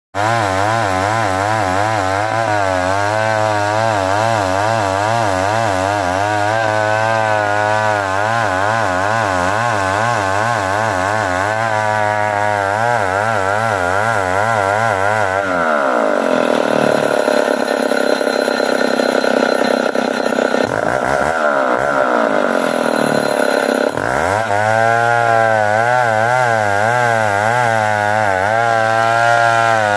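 Old chainsaw running at full throttle, ripping a damar log lengthwise, its engine pitch wavering up and down as it works under load in the cut. About halfway through, the pitch rises and holds higher for several seconds, then drops back into the wavering cutting note.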